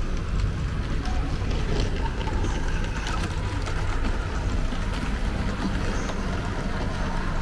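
Model train running along the track of a model railway layout: a steady rumble of motor and wheels on the rails, with faint light clicks.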